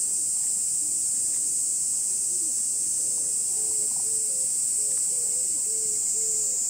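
Steady, high-pitched drone of cicadas calling in chorus. Faint short calls, low in pitch, repeat from about halfway through.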